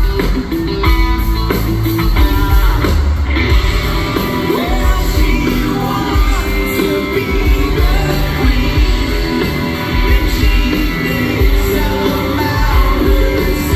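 Live rock band playing loudly, with a lead singer and electric guitar, heard from the audience with the echo of a large hall.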